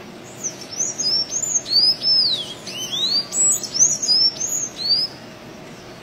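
Sanhaço-azul (blue-grey Thraupis tanager) singing: a quick run of high, squeaky notes, each sliding up and down in pitch, lasting about five seconds, over a steady faint hiss.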